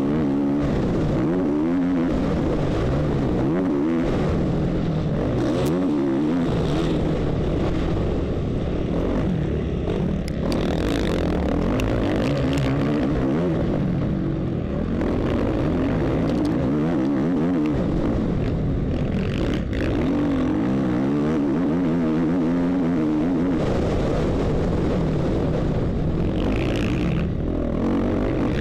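A 450cc motocross bike's single-cylinder four-stroke engine, heard close-up from on board during a race. The revs rise and fall continuously as the rider opens and closes the throttle and shifts around the track.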